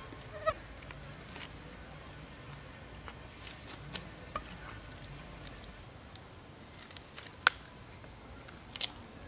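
Raw duck meat being pulled apart by hand and then bitten: scattered small wet clicks and tearing sounds, with one sharp snap late on, the loudest sound.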